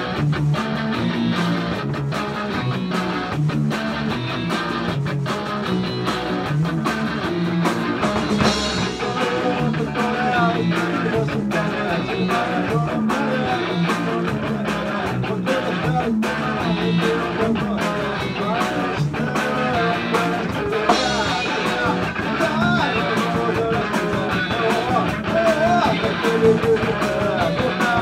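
Rock band playing live: guitars over a steady drum beat.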